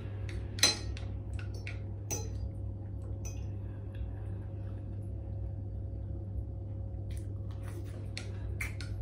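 Spoon and fork clinking and scraping against a ceramic bowl while eating, in scattered sharp clinks. The loudest comes about a second in, and several more follow near the end.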